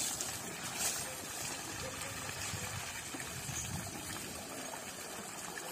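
Water running and splashing steadily as an elephant is bathed.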